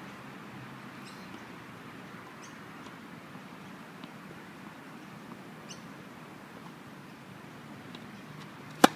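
Tennis racket striking the ball on a serve: one sharp, loud crack near the end. Before it, only a steady low background with a few faint, short high chirps and a soft ball bounce about four seconds in.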